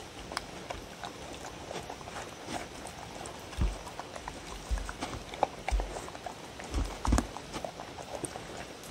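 Two dogs eating from one wooden bowl: a run of wet licking and chewing clicks, with the bowl knocking dully against the wooden tabletop several times, loudest about three and a half seconds in and twice around seven seconds.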